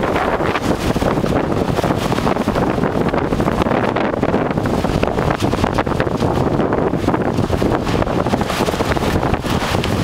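Strong, steady wind buffeting the microphone with a continuous loud rumbling roar.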